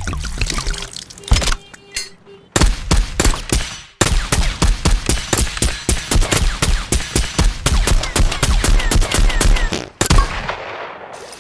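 A rapid train of sharp cracks or pops, several a second, starting about two and a half seconds in, breaking off for an instant at four seconds and stopping abruptly near the end.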